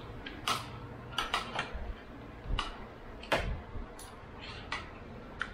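Forks and spoons clinking and scraping on ceramic plates as people eat: about a dozen light, irregular clinks, the sharpest a little over three seconds in.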